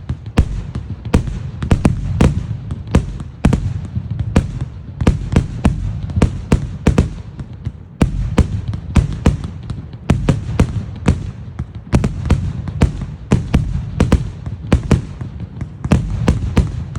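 A 100-shot shellcracker firework cake firing in rapid succession: a steady string of sharp bangs, about three a second, over a low rumble.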